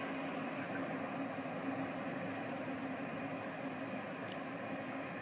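Cicadas in a steady, high, hissing chorus over the low, steady drone of a distant freight train.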